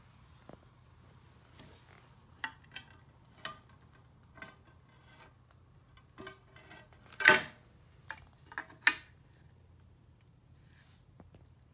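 Scattered taps and knocks as a bare steel knife blade and a block of hardwood are handled and set down on a concrete floor. Two knocks stand out, one a little past halfway and another about a second and a half later.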